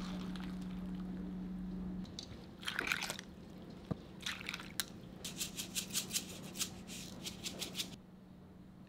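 A pot of kalguksu noodle soup boiling on an electric cooktop, with a steady hum that cuts off about two seconds in. Then short clicks and liquid sounds of the soup being handled and served, with a quick run of clicks from about five to eight seconds.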